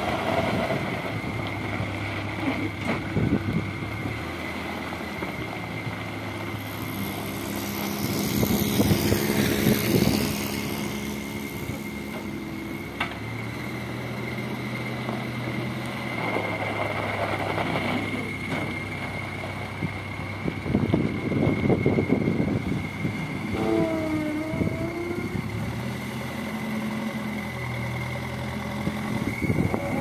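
Terex 860 backhoe loader's diesel engine running and revving as the machine drives and works its loader bucket in gravel, the engine note rising and falling with a steady high whine over it.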